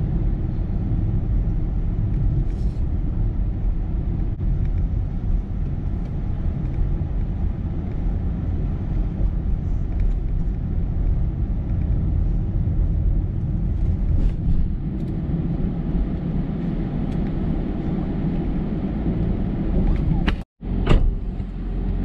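Steady low rumble of a car's engine and tyres heard from inside the cabin while driving, cutting out briefly near the end.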